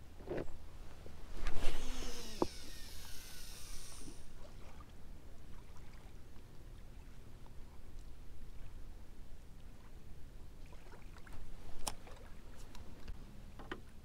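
A fishing rod cast with a baitcasting reel: a whoosh, then the spool whirring as line pays out, the whine falling in pitch over about two seconds as the spool slows, and a sharp click as the reel is engaged. Near the end come a few light clicks and knocks of the rod and stones on the rocky bank.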